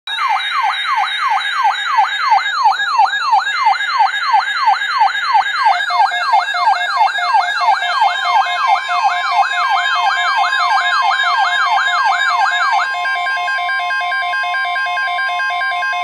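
Weather alert radios sounding a tornado-watch alarm: a warbling siren sweeping up and down about three times a second, with intermittent higher beeps, over a steady weather-radio alert tone. About 13 seconds in the warble stops, leaving the steady alert tone.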